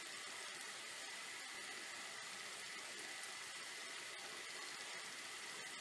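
Filo pastry frying in oil in a pan: a faint, steady sizzle with small crackles.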